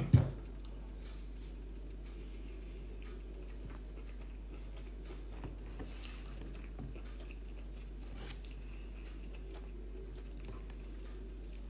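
Faint chewing and small mouth clicks of a person eating a mouthful of chickpeas, rice, spinach and avocado, over a steady low background hum.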